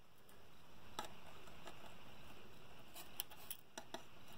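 Faint, sharp clicks and taps as a metal hand tool and a voltage-regulator board with its metal heat sink are handled: one click about a second in, then a quick cluster of several near the end, over a steady low hiss.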